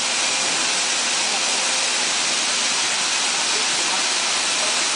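Radiator brass-tank soldering machine hissing steadily and loudly, a constant rushing noise with no breaks.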